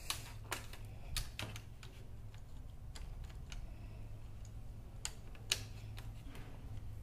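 Irregular light clicks and taps of a screwdriver and plastic wire-harness connectors on a plasma TV's circuit board as the board is fitted back in place, about half a dozen, the sharpest late on, over a low steady hum.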